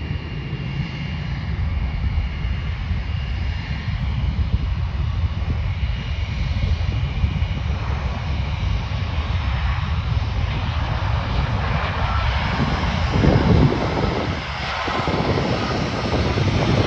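Jet airliner's engines on final approach: a steady low rumble with a faint high whine, growing louder over the first couple of seconds as the plane comes in, with a brief louder surge about 13 seconds in as it passes low overhead.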